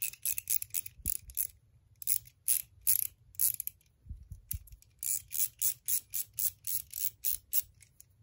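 Pawl of a small 1/4-inch-drive ratchet clicking rapidly as the fitted Nepros 6.35 mm quick spinner is spun by hand, in three runs of clicks with short pauses, the last run about six clicks a second. A few soft knocks of handling fall between the runs.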